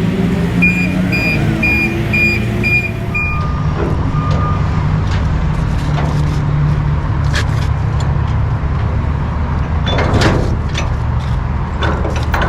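A car running, with a steady low rumble heard from inside the cabin. About half a second in comes a quick row of about six short high electronic beeps, followed by a few lower beeps.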